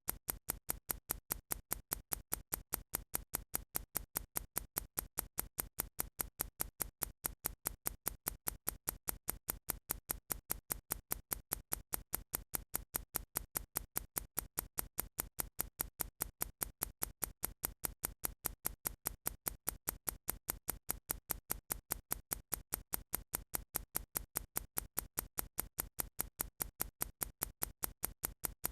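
Countdown timer's clock-style ticking sound effect: regular sharp ticks, alternating louder and softer, keeping an even pace.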